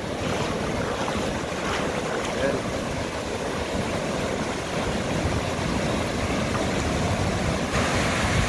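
Ocean surf washing and foaming in the shallows, a steady rush of water. A wave breaks close by near the end, bringing a louder, brighter rush.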